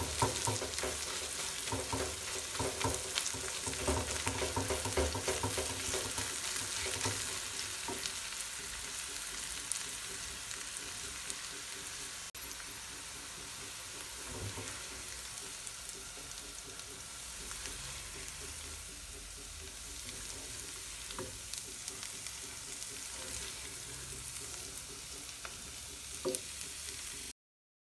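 Vegetable scrambled egg sizzling in a frying pan while a silicone spatula stirs and scrapes through it, the scraping busiest in the first ten seconds. The sizzle then carries on more steadily and cuts off suddenly near the end.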